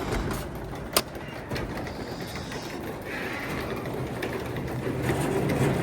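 Craftsman 3/4 hp belt-drive garage door opener raising the door after a keypad command: a steady rumble of the motor with the door rolling and rattling up its tracks, and one sharp click about a second in.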